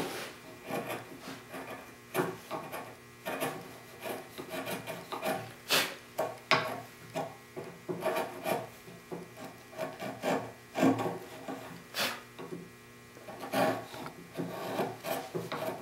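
Sharp wood chisel paring a Sipo (African mahogany) tenon by hand: an irregular run of short scraping strokes as thin shavings come off, with a few louder strokes among them.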